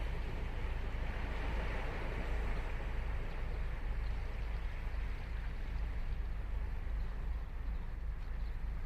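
Ocean surf on Sagami Bay washing up the beach: a wave's hiss swells in the first few seconds and eases off near the end, over a steady low rumble.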